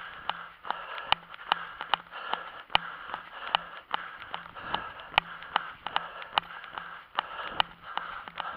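A runner's footsteps on a paved sidewalk, a steady beat of about two and a half strides a second over a steady hiss, picked up by a camera worn on the runner's body.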